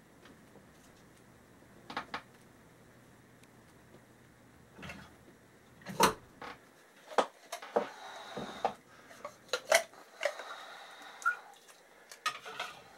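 Small hard objects being handled: a DVD and its label pressed on by hand, with scattered sharp plastic clicks and taps that come thick and fast in the second half.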